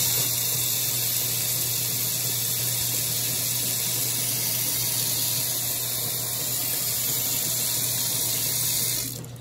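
Kitchen faucet running a steady stream into a stainless steel sink and down the garbage-disposer drain as the drain is tested after a clog was cleared, with a steady low hum underneath. The water shuts off near the end.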